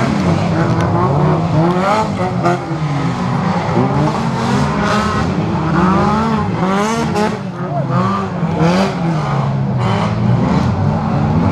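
Several dirt-track race car engines revving hard, their pitch rising and falling and overlapping as the cars race around the circuit.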